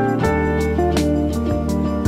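Background music with plucked guitar notes and a steady beat.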